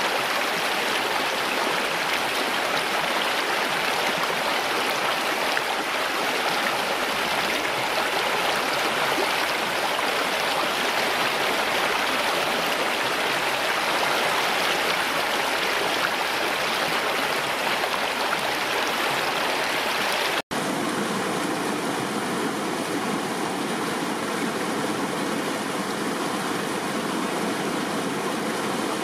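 Flowing river water, a steady rushing noise. About twenty seconds in it cuts abruptly to another stretch of flowing water with slightly less hiss.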